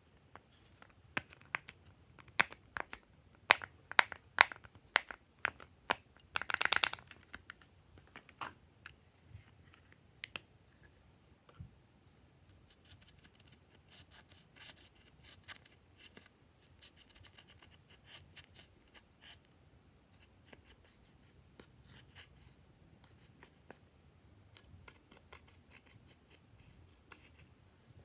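Silicone pop-it fidget toy being pressed, a series of sharp pops over the first several seconds. Then a plastic stick scraping and crumbling pressed eyeshadow out of its palette, a long run of soft scratching.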